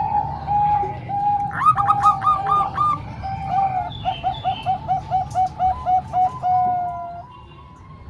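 Zebra doves (perkutut) cooing: runs of short repeated notes, with a second, higher-pitched bird overlapping about a second and a half in. A fast run of about a dozen notes ends in one long held note that stops about seven seconds in, over a steady low hum.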